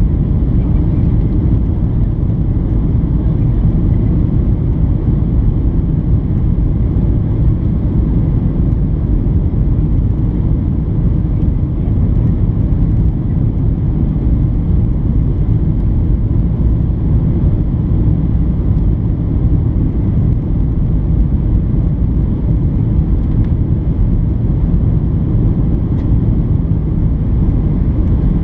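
Steady low rumble of engine and airflow noise inside the cabin of a Boeing 737-800 on final approach, flaps extended, heavy in the bass with no changes.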